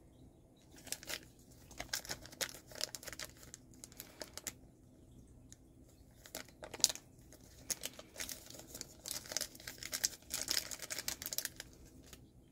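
Thin plastic wrapper of a small toy packet crinkling and tearing in the hands, in bursts of crackle with short pauses between, densest in the second half.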